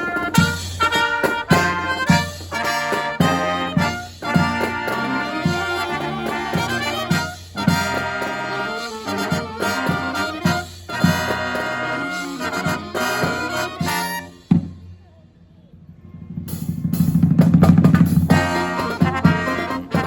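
Live brass marching band with drums playing a fanfare, the Christmas version of its opening fanfare: bright trumpets and trombones over drum hits. About fifteen seconds in the music drops away, then a low swell builds and breaks into short punchy hits near the end.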